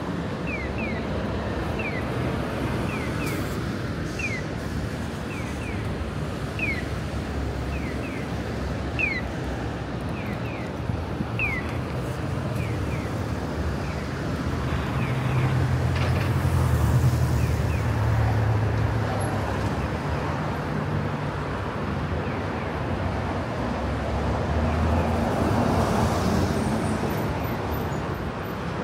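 City street traffic running steadily, with a heavy vehicle's engine hum swelling as it passes around the middle and again near the end. Short, high chirps repeat through the first part.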